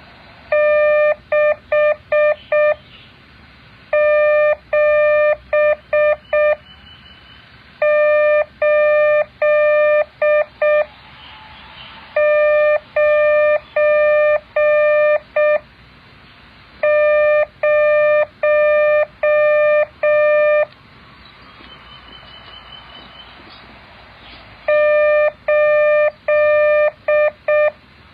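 Morse code practice tone: a steady mid-pitched beep keyed into dots and dashes, sent as six groups of a few seconds each with pauses between them, over a faint hiss.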